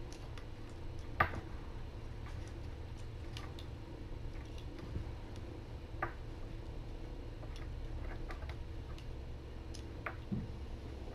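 Irregular light clicks and taps of kittens pawing and nosing a small plastic webcam set on a can, over a low steady room hum. The sharpest taps come about a second in, about six seconds in and near ten seconds.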